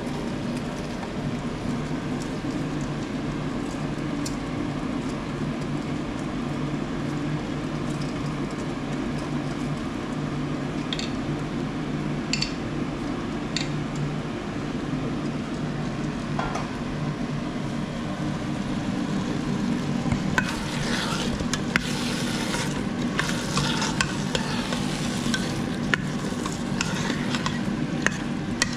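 Food sizzling in the steel inner pot of an electric pressure cooker on sauté while rice is tipped in and stirred with a steel ladle; from about two-thirds of the way through, the ladle scrapes and clinks busily against the pot. A steady low hum runs underneath, with a few sharp clicks earlier on.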